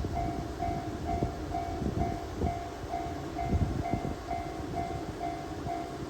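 Japanese level-crossing warning bell ringing in a steady ding-ding, about two a second, over the low rumble of a passing KiHa 122 single-car diesel railcar, with a few low thumps in the middle.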